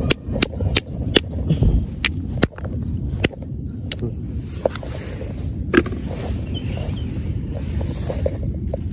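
Green mussel shells being crushed open by hand for bait: a quick run of sharp cracks and knocks in the first two and a half seconds, then one more about halfway through, over a steady low rumble.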